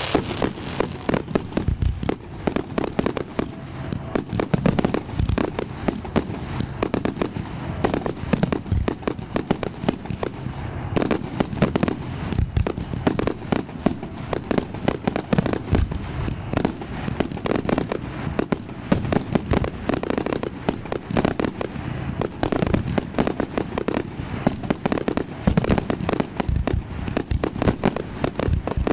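Aerial fireworks going off in a rapid, unbroken barrage, with many overlapping bangs each second.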